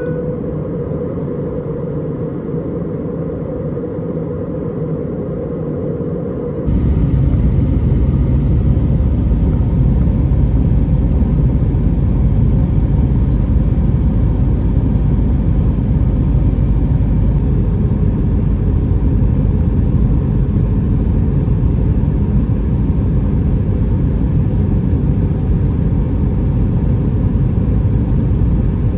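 Airbus A320 cabin noise: the steady rumble of the engines and airflow heard from a window seat. About seven seconds in it jumps abruptly to a louder, deeper rumble that then holds steady.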